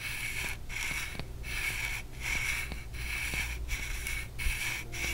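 The Swans M10 subwoofer's volume knob is turned in about seven short strokes, giving a weird scratching sound like metal rubbing against metal or a tiny chalkboard. The scratch is a flaw in the knob's turning mechanism.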